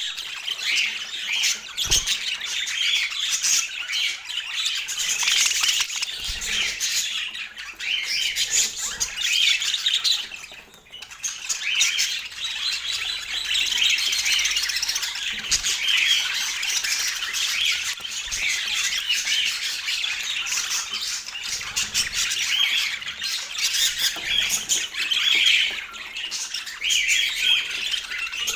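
Budgerigar chattering and warbling, a busy stream of chirps and squawks with a short lull about ten seconds in.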